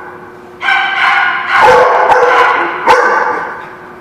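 Dogs barking and yipping during rough play-wrestling: about four sharp barks, the first about half a second in, each with a slowly fading tail.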